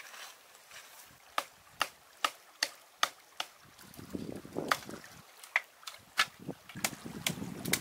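A run of sharp knocks, about two to three a second. A low rushing noise comes in about halfway through.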